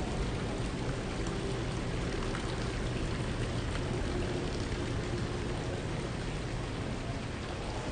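Steady splashing and trickling of water running in garden fountains.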